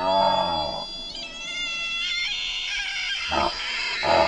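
Deer calling: a pitched call that rises and falls at the start, high held whistling tones through the middle, then short repeated calls about every 0.7 seconds near the end.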